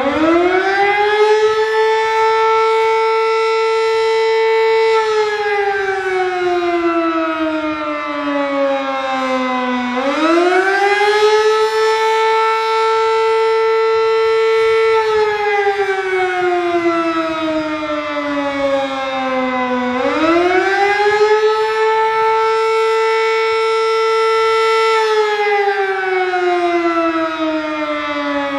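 Sterling M-10 electromechanical siren sounding the attack signal during a test. Its pitch rises in about a second, holds for about four seconds, then slides slowly down over about five seconds, repeating about every ten seconds: three full cycles, with a fourth rise starting at the very end.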